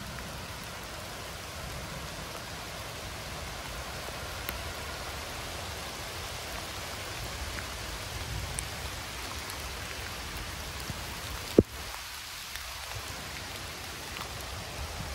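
Heavy rain falling steadily, an even hiss of rain on surfaces. One sharp knock about three-quarters of the way through.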